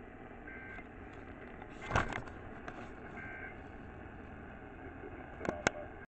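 AM radio hiss and static from a weather radio tuned to 1510 kHz, with two short, faint two-pitch data warbles, the EAS digital signal, about half a second and about three seconds in. A loud click comes about two seconds in and two sharp clicks near the end.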